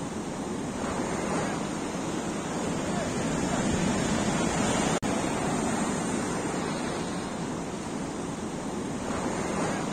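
Surf breaking and washing up a sandy beach, a steady rushing that cuts out for an instant about halfway through.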